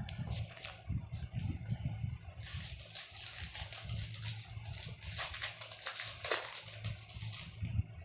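Crinkling and rustling of a Yu-Gi-Oh booster pack wrapper being torn open and handled, in irregular crackles that are busiest in the middle stretch.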